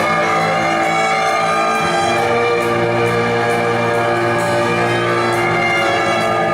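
A pop-symphony orchestra and solo piano playing a concert piece live. The orchestra holds full sustained chords, and the bass moves to a new note about two seconds in.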